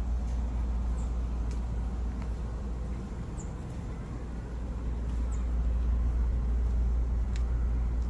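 Steady low outdoor rumble with a few faint clicks and short high chirps.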